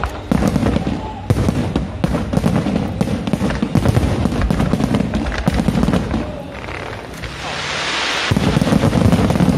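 Fireworks going off in quick succession: dense bangs and crackling, with a rushing hiss swelling up about seven seconds in.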